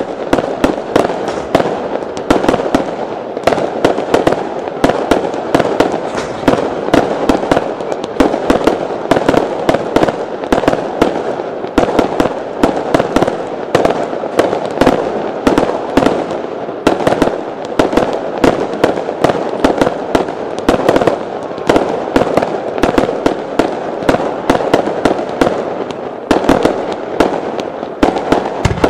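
Fireworks display with many shots firing and bursting in rapid succession: a dense, unbroken stream of sharp pops and bangs, several a second.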